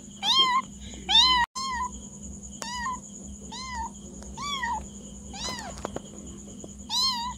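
A cat meowing over and over: about eight short, high meows, each rising then falling in pitch, roughly one a second.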